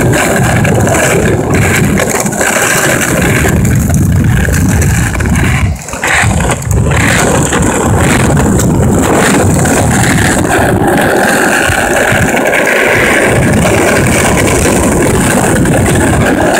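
Steady loud rumble of wheels rolling over a concrete sidewalk, dipping briefly about six seconds in.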